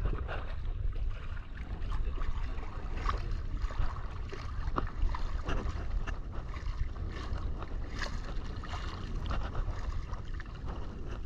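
Shallow seawater sloshing and splashing against a camera held at the surface, with scattered small splashes over a steady low rumble.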